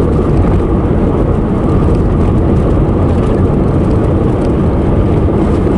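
Steady road noise of a moving car heard from inside the cabin: an even low rumble of tyres and engine.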